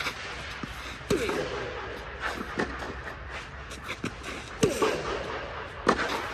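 Tennis ball struck back and forth with rackets in a rally: about five sharp pops of racket hits and ball bounces, each echoing in the large fabric dome hall.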